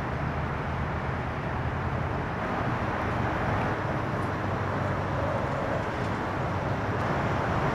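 Steady outdoor rumble of distant vehicles with an even hiss over it, growing slightly louder toward the end.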